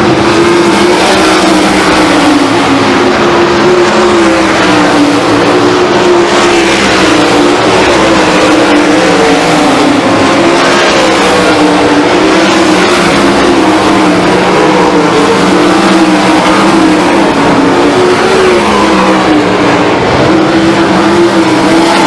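A pack of 410 sprint cars racing, their 410-cubic-inch V8 engines running hard, the pitch of the pack rising and falling as the cars lap the track.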